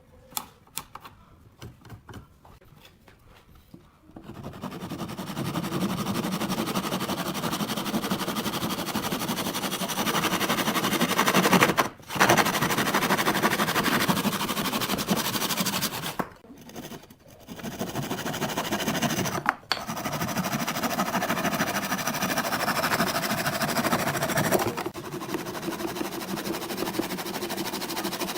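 An electric woodworking power tool running in long stretches, with short pauses, after a few seconds of faint handling clicks. Its output drops to a lower level near the end.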